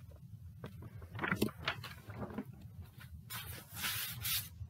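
Paper and handling noises: a few soft knocks and clicks, then a rustle of paper about three seconds in as a drawing sheet is put down and the next one picked up, over a steady low hum.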